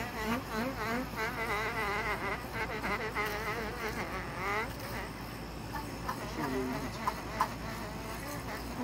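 An electric fish scaler buzzes as it is run over a fish, its pitch wavering rapidly up and down. It stops about five seconds in, and a couple of light clicks follow.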